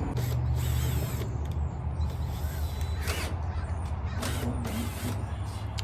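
A table being dragged across a concrete patio: about five short scraping, creaking strokes, with a steady low hum underneath.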